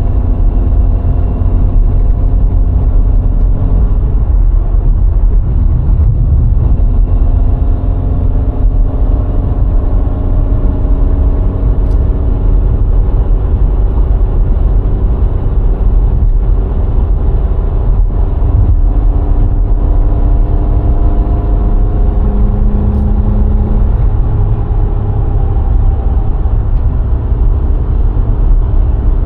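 VW Golf IV 1.6 four-cylinder petrol car driving, with a heavy, steady low rumble of road and wind noise. Above it the engine note climbs slowly several times as the car pulls through the gears.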